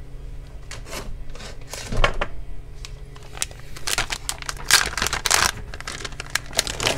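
Small hand tools being handled: a run of irregular sharp clicks and clatter as screwdrivers are picked over and taken up. There is one louder knock about two seconds in, and the clatter is busiest about four to six seconds in.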